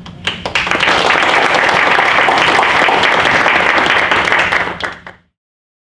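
Small audience applauding: a few scattered claps build quickly into steady clapping, which cuts off suddenly about five seconds in.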